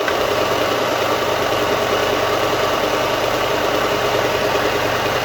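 Bauer combination belt and disc sander running with no load, its electric motor and sanding belt making a steady hum while the belt's tracking is set.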